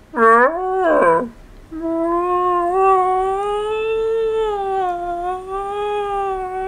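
A man's voice: two short swooping notes, then, about a second and a half in, one long held high note that wavers slightly in pitch.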